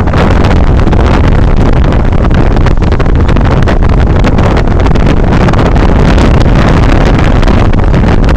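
Wind buffeting the camera microphone through the open window of a moving vehicle, over the vehicle's engine and road noise. A loud, steady rumble with constant gusty flutter.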